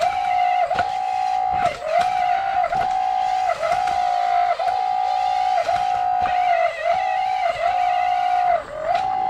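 A steady electronic tone that dips briefly in pitch about once a second, over and over.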